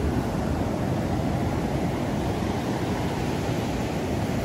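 Ocean surf breaking and washing up the beach: a steady, even rush of waves, heaviest in the low range.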